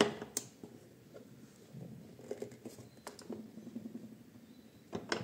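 Hand-tightening a locking screw on a Parkside PDM 600 benchtop wood lathe: a sharp metal click at the start and another about half a second in, then faint scattered ticks and scraping, with two more clicks near the end.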